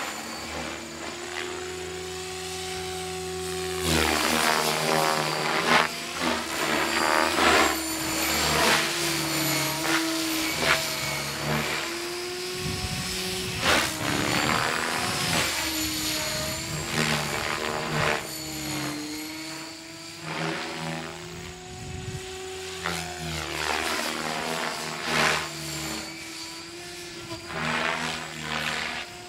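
Electric Gaui Hurricane 550 radio-controlled helicopter in flight: the whine of its brushless motor and the hum of its rotor blades, swelling and fading and shifting in pitch as it passes back and forth several times.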